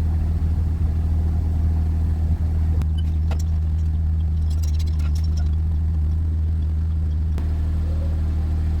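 BMW M2's engine idling steadily, with a few light clicks about halfway through.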